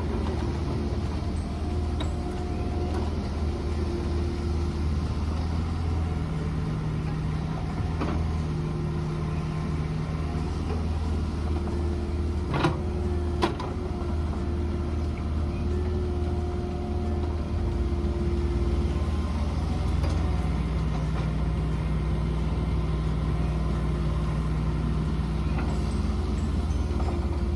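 Mini excavator's diesel engine running steadily under work, with a steady tone that comes and goes for several seconds at a time, twice, as the machine works. A few sharp knocks sound, one about eight seconds in and two close together around the middle.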